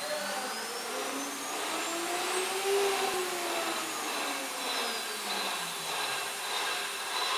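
JCUT-1330H CNC wood router running: a steady machine whir with whining motor tones that rise in pitch and then fall again, peaking about three seconds in, as the head travels over the table.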